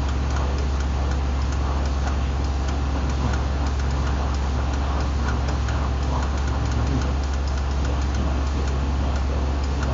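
Vibration test table shaking a test load under a random vibration profile: a steady low hum with rapid fine ticking over it.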